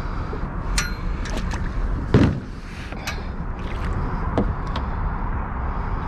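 Plastic fishing kayak being hauled by a bow rope onto a boat trailer's carpeted bunks: scattered knocks and clicks from the hull and trailer, the loudest a thump about two seconds in, over a steady low rumble.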